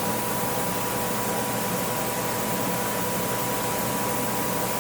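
Steady hiss and hum of running fans or ventilation, with a faint constant whine, unchanging throughout.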